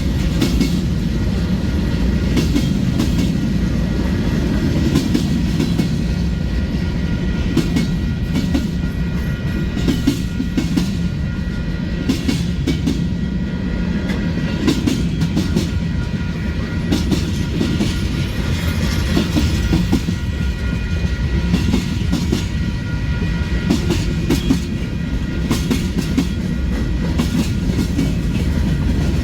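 Long Union Pacific freight train rolling past: a steady low rumble of the cars, with wheels clicking irregularly over the rail joints.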